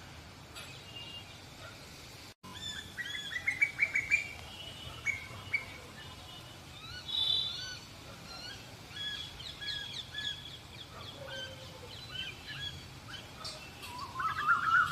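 Birds calling: runs of short rising notes and scattered chirps, several calls overlapping.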